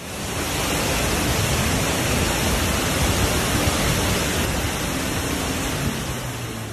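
Muddy floodwater pouring in a torrent over rocky ledges: a loud, steady rush of water.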